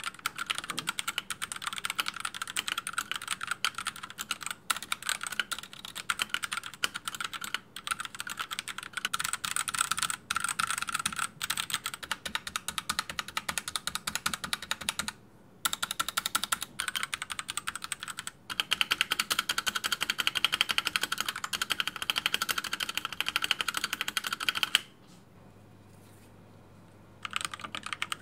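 Typing sound test on a Rexus Daxa M84 Pro mechanical keyboard fitted with yellow linear switches that have been hand-lubed and filmed: a steady run of keystrokes, denser in the second half, with a pause of about two seconds near the end before typing resumes.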